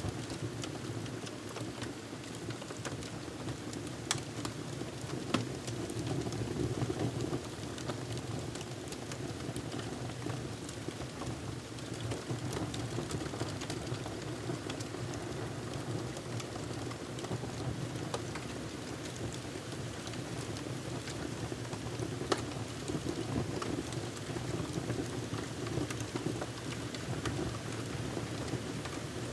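Wood fire crackling, with occasional sharper pops over a steady rushing noise.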